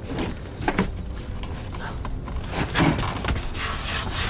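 Wooden overhead cabinet being handled: a few knocks and clatter of wood, and its door swung open.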